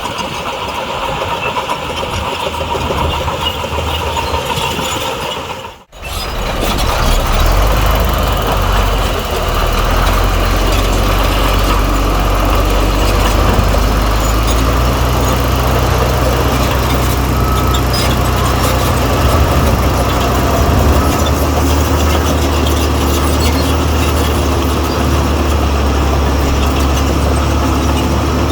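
Diesel engine of heavy earthmoving machinery running steadily. The sound drops out for an instant about six seconds in, after which a deeper, louder engine drone takes over.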